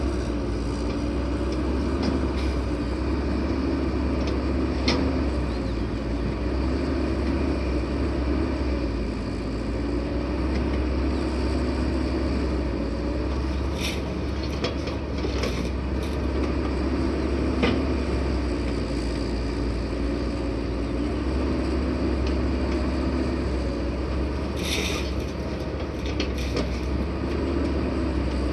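Dump truck's diesel engine running steadily, with a few short clanks about five seconds in, around the middle and near the end.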